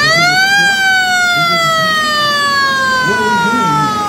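Motor-driven siren of a WWII half-track winding up fast to a high wail, then slowly winding down in one long falling tone. Crowd voices murmur faintly underneath.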